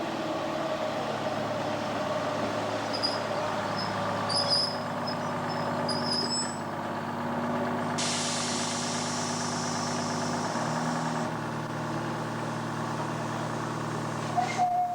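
Steam engine running with a steady hum. About eight seconds in, a hiss of escaping steam starts abruptly and cuts off some three seconds later. A steam whistle begins just at the end.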